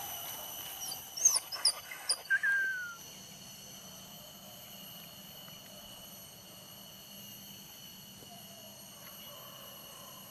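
Hunting dog whining in several short, high, falling squeals in the first three seconds, ending in one longer falling whine. Steady high insect drone behind it.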